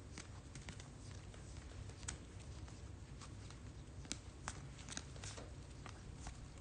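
Faint, irregular clicks and ticks of 2021 Topps Chrome Platinum trading cards being flipped through one by one by hand, over a low steady hum.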